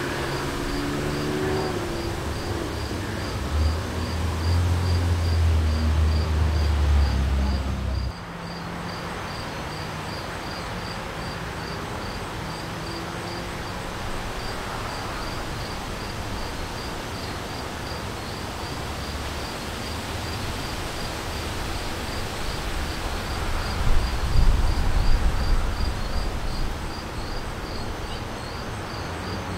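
Night insects chirping in a steady high pulse, about two chirps a second, over a constant rush of gusty wind. Wind buffets the microphone with low rumbling from about four to eight seconds in and again near the end.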